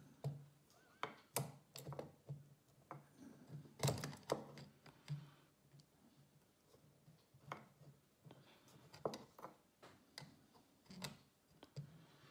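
Light clicks and taps of brass parts and small tools on a Breguet clock movement being handled during assembly, a dozen or so at irregular intervals.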